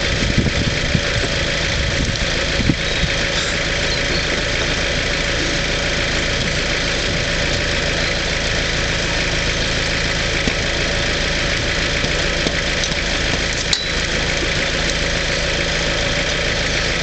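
Vauxhall Frontera 4x4's engine idling steadily. A few light knocks come near the start and once about fourteen seconds in.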